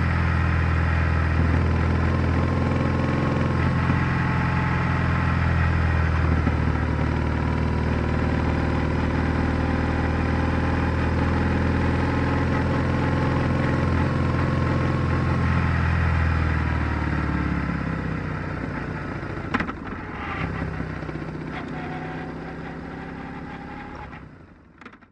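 BMW R1100R's air/oil-cooled flat-twin boxer engine running steadily under way, picked up by a microphone under the seat. About two-thirds of the way through the engine note drops away as the throttle is closed and the bike slows, with a sharp click or two, and near the end the sound fades out.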